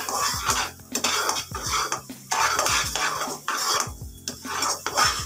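Metal slotted turner scraping and stirring thick besan halwa in a pan, in repeated scraping strokes with clicks of metal on the pan, roughly one stroke a second.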